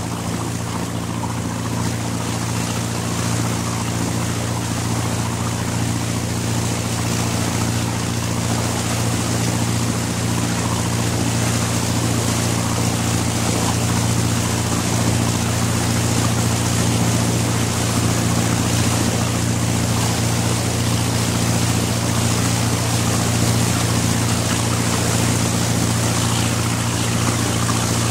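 A 27 ft cabin cruiser's 50 HP diesel engine running at a steady speed, heard on board, with the rush of the stern wash. The wash swells over the first few seconds, then holds steady with the engine.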